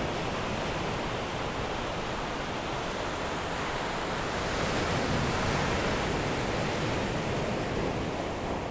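Ocean waves washing: a steady rush of water that swells a little about halfway through and begins to fade out near the end.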